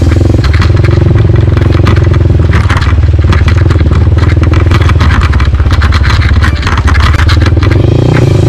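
Crossfire motorcycle's engine running under way over a rocky riverbed, with many short clatters and scrapes of stones under the tyres.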